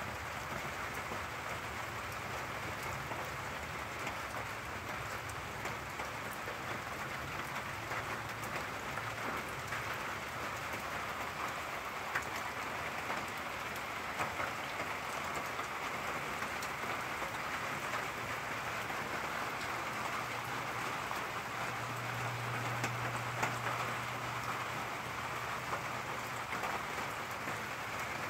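Steady rain falling in a thunderstorm, a constant hiss with scattered drop ticks. A low rumble swells for a few seconds about three-quarters of the way through.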